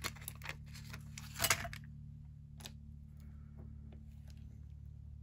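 Handling of clear craft stamps and their plastic sleeve on a work mat: a short plastic rustle about a second and a half in, and scattered light clicks and taps, over a low steady hum.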